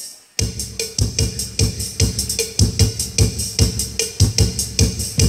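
Background music with a steady, driving beat, starting about half a second in.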